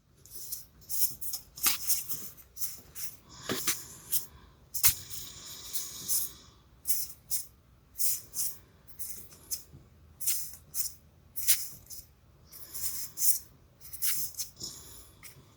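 Magic: The Gathering trading cards being flipped through one by one. Each card slides off the stack with a short papery swish or snap, irregularly, about one to two a second.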